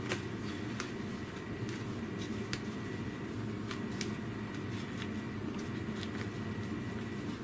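Faint, scattered clicks of punched paper pages being pressed onto the plastic discs of a disc-bound journal, about one a second, over a steady low hum of room noise.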